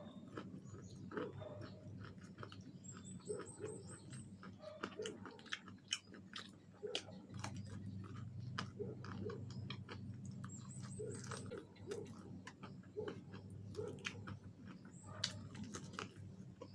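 Close-miked chewing of fried chicken, with wet mouth clicks, smacks and small crunches coming irregularly over a steady low hum.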